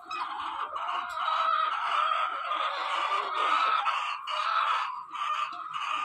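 A large flock of white layer hens calling all at once: a dense, continuous chorus of overlapping clucks that starts abruptly and dips briefly near the end.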